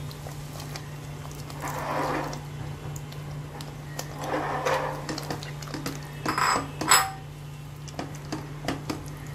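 Marinated chicken strips tipped from a bowl into thick curry paste in a pot and stirred in with a silicone spatula: a few wet scraping, sliding passes and a sharp knock of utensil on the pan about seven seconds in, over a steady low hum.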